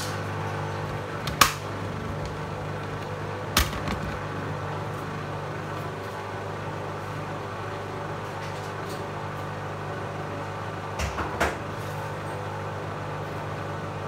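Beko WM5122S front-loading washing machine on its interim spin, the drum and motor running with a steady hum. A few sharp clicks or knocks come through, one about a second and a half in, another about three and a half seconds in, and a short cluster near the end.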